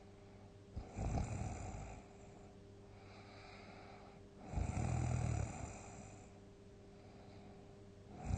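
A sleeper snoring loudly: two deep snores about three and a half seconds apart, with a softer breath between them, and a third snore beginning at the very end.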